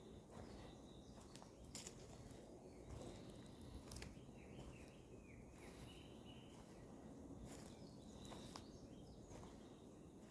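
Faint outdoor ambience with distant bird chirps a few seconds in and again near the end, and a few soft clicks.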